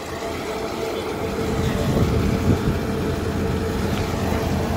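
Tractor and forage trailer running steadily while the trailer unloads chopped grass: a constant mid-pitched hum over a low engine rumble.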